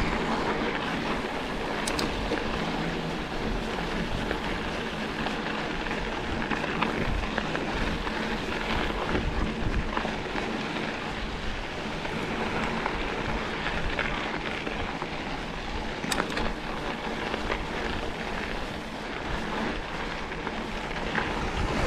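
Mountain bike riding over a dirt trail: a steady rushing noise of knobby tyres rolling on sandy dirt and the bike rattling, with wind buffeting the bike-mounted camera's microphone. A couple of sharp clicks stand out, one about two seconds in and one near the end.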